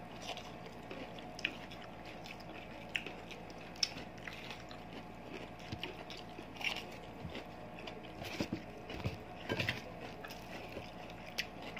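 Quiet eating sounds: chewing and biting, including bites of a raw red bell pepper, with scattered small clicks and mouth smacks.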